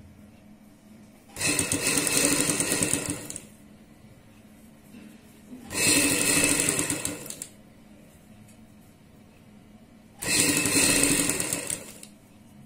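Sewing machine stitching in three runs of about two seconds each, with quiet pauses between, sewing a fabric strip onto a buckram-stiffened neckline piece.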